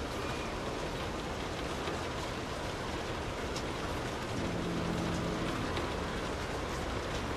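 Steady rain drumming on a car's roof and windows, heard from inside the car, with scattered sharper drop hits. About halfway through, a low hum comes in briefly and then fades.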